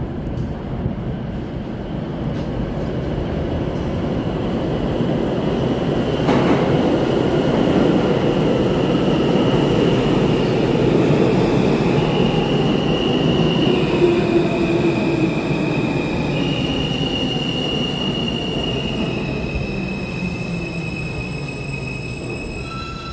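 R160 subway train pulling into the station and braking to a stop: a rumble of wheels on rail that swells as it arrives and eases as it slows. Over the rumble, high steady whines step from one pitch to another.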